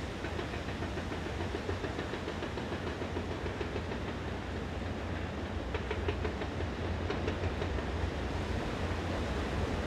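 CrossCountry diesel multiple unit running along the line, a steady rumble that slowly grows louder as it approaches. There are a few wheel clicks over rail joints about six to seven seconds in.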